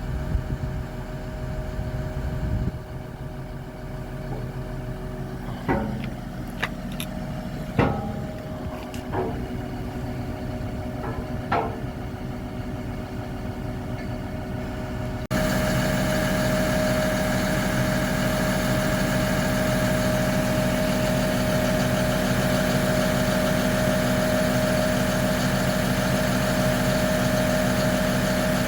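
Diesel engine of a wheeled excavator idling steadily, with a few short metallic knocks in the first half. About halfway through the same idle suddenly becomes much louder.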